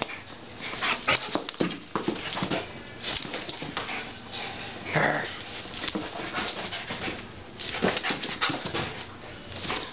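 Greyhound playing on a carpeted floor: quick scuffling and thumping of paws, with a few short whines.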